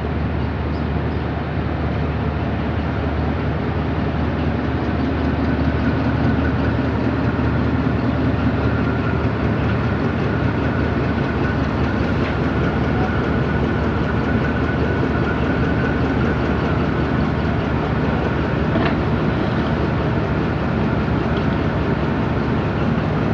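Pakistan Railways ZCU-20 diesel locomotive's Caterpillar diesel engine running steadily as the locomotive inches up to the train's coaches for coupling, with a faint high whine in the middle.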